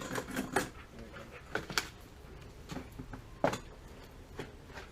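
About seven irregular sharp clicks and light knocks over a quiet room background, from hands-on work on a gas water heater.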